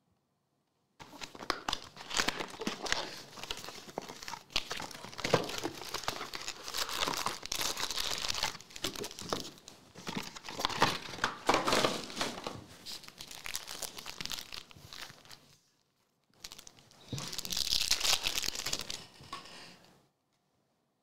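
Foil-wrapped trading-card pack being crinkled and torn open, a long run of rustling and crinkling, then a shorter burst of crinkling near the end.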